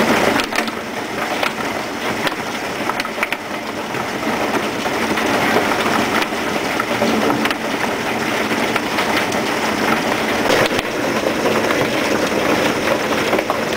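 Heavy hailstorm with rain: hailstones striking the ground and nearby surfaces in a loud, dense clatter with many sharp individual hits.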